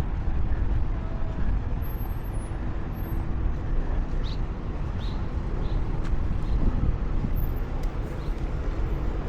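Outdoor street ambience: a steady, noisy low rumble of passing traffic, with a few short high chirps about halfway through.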